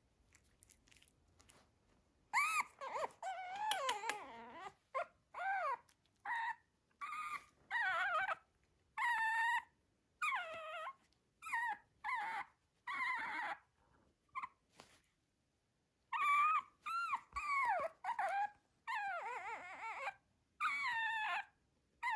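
Young Shih Tzu puppy whining in a long series of high, wavering cries, each under a second, starting about two seconds in, with a short pause about two-thirds of the way through.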